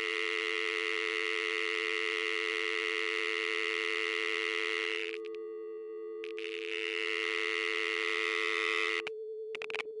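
Telephone dial tone: a steady two-note hum held without a break. About nine seconds in, the lower note cuts out, leaving a single tone with a few clicks.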